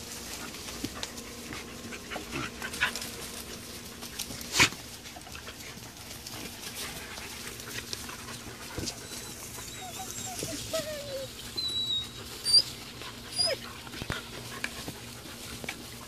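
Wolfdog puppies and an adult Tamaskan dog play-fighting: scuffling on dry grass and straw with a few short whimpers, and a sharp knock about four and a half seconds in and again about twelve and a half seconds in.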